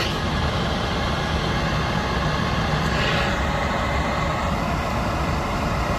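Goodman package unit running with a steady mechanical drone while it repeats its fault, which the technician puts down to a bad pressure switch.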